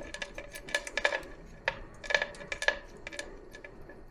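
Irregular metallic clinks and clicks of a wrench and small steel hardware (nuts and a bracket) being worked loose and handled on a carburetor, each clink ringing briefly. The louder clinks come at about 0.8, 1, 1.7, 2.2 and 2.7 seconds in.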